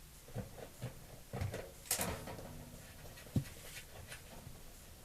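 Small metal clicks and scrapes of an adjustable wrench working the little bolts on a gas water heater's burner access door loose, with a sharper click about three and a half seconds in.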